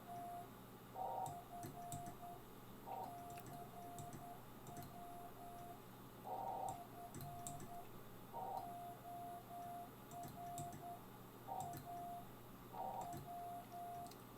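Morse code (CW) on a ham radio transceiver: a single mid-pitched tone keyed on and off in quick dots and dashes over faint band hiss. Short bursts of noise come every couple of seconds.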